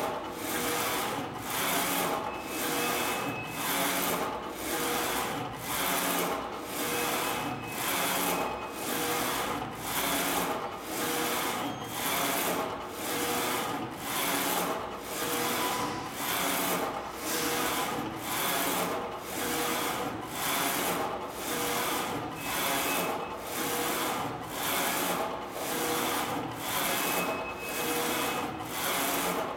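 HDJ-A4 flatbed digital textile printer running a print job: its inkjet printhead carriage sweeps back and forth along the rail, a rubbing whoosh about once a second with a short break at each reversal.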